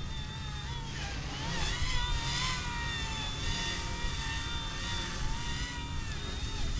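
Eachine E120 toy RC helicopter flying: a high motor-and-rotor whine that wavers up and down in pitch as the throttle changes, louder from about a second in. A low rumble of wind on the microphone runs underneath.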